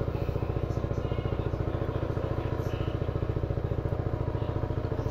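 A small engine idling steadily, with a rapid, even pulse.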